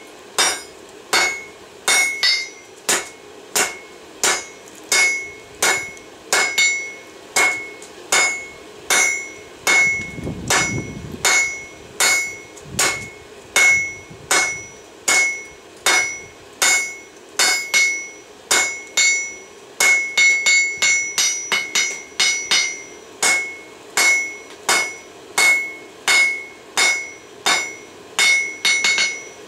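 Hand hammer striking a red-hot railroad spike on a Peddinghaus anvil, blow after blow at a steady pace of a little under two a second. Each blow leaves a clear, high ring from the anvil.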